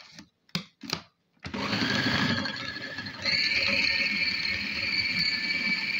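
Clear plastic lid of an electric food processor clicked into place, then the motor starts and runs, chopping a thick chicken-and-bread mixture. About three seconds in, its whine steps higher and holds steady.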